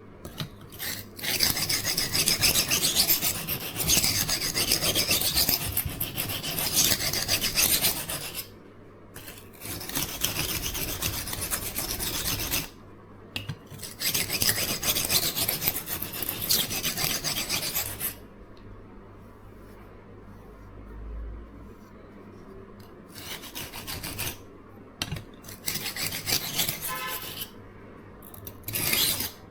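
Knife blade being stroked back and forth on the coarse side of an oil-soaked Norton 37C combination sharpening stone: runs of gritty scraping in long sets broken by short pauses, then a few shorter passes near the end.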